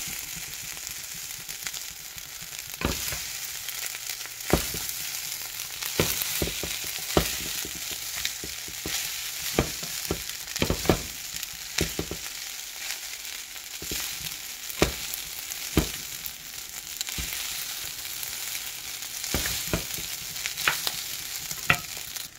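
Shrimp and vegetable fried rice sizzling in a frying pan as it is stirred and turned with a wooden spatula, with a steady hiss and irregular sharp knocks and scrapes of the spatula against the pan.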